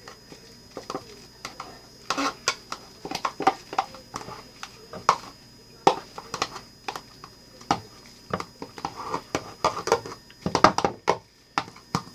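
A utensil stirring toilet paper and dish soap in a small container, making irregular clicks and knocks against the sides.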